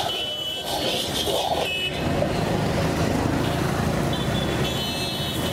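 Steel ladle stirring and scraping around an iron wok, with brief high metallic ringing now and then, over steady road traffic noise.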